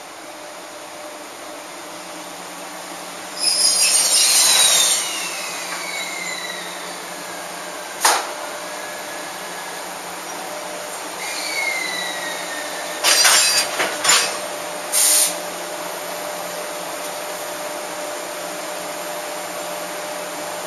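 JR Freight EF66 electric locomotive creeping up slowly to couple onto a freight train, with a steady running noise. As it slows there are squeals that fall in pitch, about three to five seconds in and again about eleven seconds in, loud hisses, a sharp click about eight seconds in, and a cluster of short loud hisses about thirteen to fifteen seconds in.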